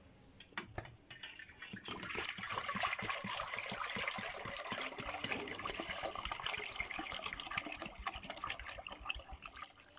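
Water being poured into a cooking pot for ugali, a steady pour that starts about two seconds in and stops just before the end.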